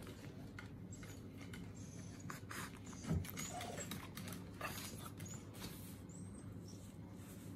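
Shiba Inu whining through its nose in short, very high squeaks, distressed because it is stuck up on a chair and can't get down. Around it are light clicks of claws and paws shifting on the chair, and a soft thump about three seconds in.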